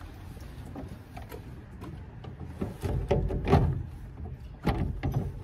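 Clicks and knocks of a plastic car headlamp unit being handled and pushed back into place in the front end, with heavier low thuds about three seconds in and again near the end.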